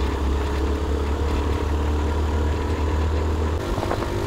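Motorcycle engine running on the road, with a heavy low rumble that stops abruptly about three and a half seconds in.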